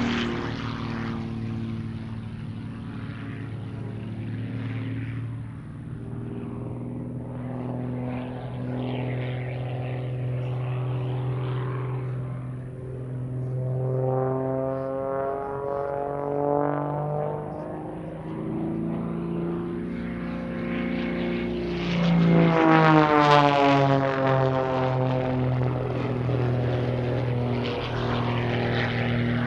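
Piston engine and propeller of a 1956 de Havilland Super Chipmunk aerobatic plane, its custom-built 350-horsepower engine running hard through aerobatic manoeuvres. The pitch sweeps up and down repeatedly, and it is loudest about three-quarters of the way through.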